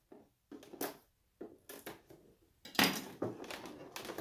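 Short scratching clicks as a knife slits tape on a clear plastic blister tray, then louder crinkling and crackling of the stiff plastic tray being handled and pried open from about two-thirds in.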